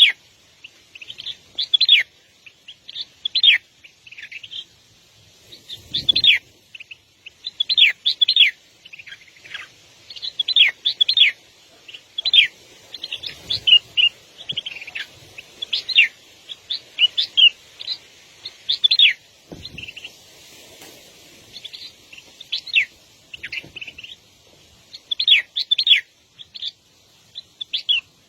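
Small birds chirping over and over in quick clusters, each call a short, sharp note sliding downward in pitch. A few dull low thumps come in under the calls.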